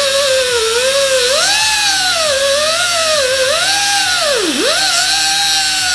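Angle grinder with an abrasive cut-off wheel cutting through a steel coil spring: a loud motor whine whose pitch sags and recovers as the wheel is pressed into the coil, dropping sharply twice near the end when it bogs under load.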